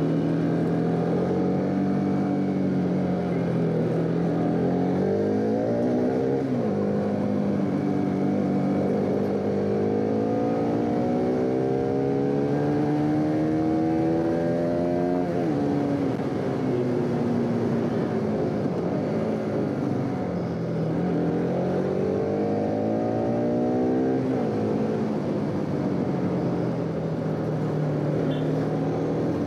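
Bajaj Pulsar RS200's single-cylinder engine under way, its note climbing and falling with the throttle. It rises over several seconds to a peak about halfway through, drops sharply, settles lower, then climbs again and drops sharply near the end.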